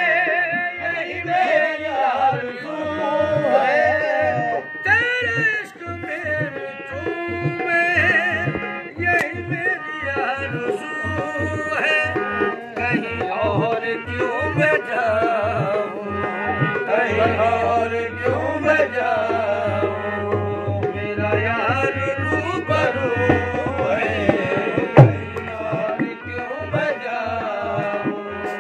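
Live qawwali: harmonium melody and male voices singing over a steady hand-drum beat. A low drone enters in the bass about halfway through.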